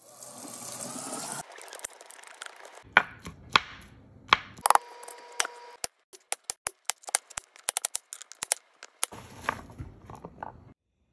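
Knife chopping pumpkin on a cutting board: a run of sharp knocks, coming quickly in the middle, with stretches of rushing noise at the start and near the end.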